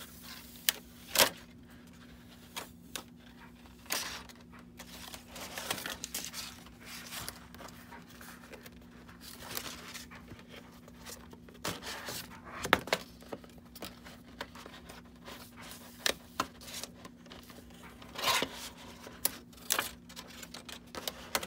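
Cut cardstock pieces being peeled off a sticky Cricut cutting mat: irregular papery peeling, crackling and rustling with scattered sharp clicks, the sharpest about a second in, over a faint steady low hum.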